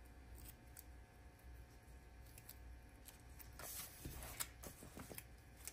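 Faint rustling and light taps of paper stickers being handled and placed on a planner page, a little louder about two-thirds of the way through.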